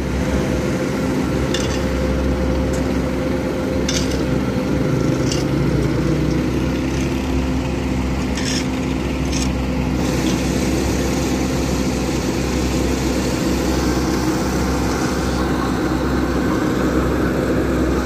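Heavy diesel engines of an asphalt paver and the dump truck feeding it, running steadily with a constant hum as the paver slowly pushes forward while laying asphalt. A few short clicks or knocks sound over it in the first half.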